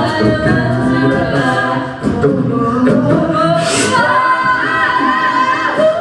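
A cappella group singing live: several voices in sustained harmony over a sung bass line, with a female lead voice on top. The lead line wavers with vibrato near the end.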